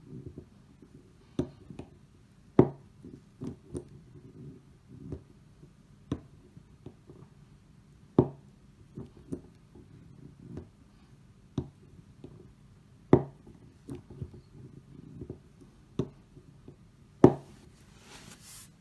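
Steel toggle clamp worked by hand: sharp metal clicks and clacks from its handle and linkage as the clamp is cycled, with the loudest clacks about every five seconds and lighter clicks between.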